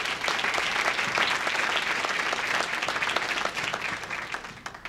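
Audience applauding, a roomful of people clapping that tapers off near the end.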